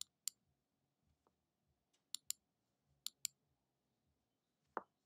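Faint computer mouse button clicks: three clicks, each a quick press-and-release pair, then near the end one single softer, lower tap.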